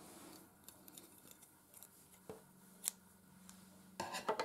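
A few faint, sharp clicks and taps, the clearest about three seconds in, then a quick cluster of them near the end, from the crochet hook and work being handled on a wooden table.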